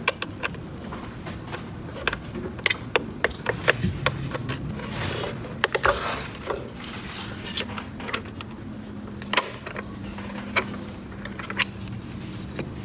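Irregular light clicks and taps of small plastic toy pieces being handled and set in place, over a faint steady hum.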